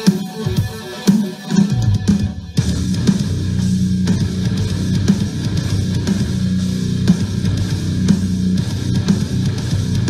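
Bose SoundLink Color Bluetooth speaker playing a heavy rock track: drum hits at first, then the full band with guitars comes in suddenly and louder about two and a half seconds in.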